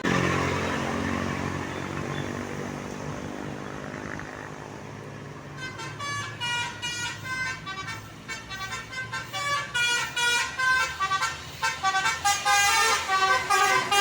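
A bus passes close with its engine running, then from about six seconds in a telolet horn, the multi-tone musical bus horn, plays a quick tune of short high notes that grows louder.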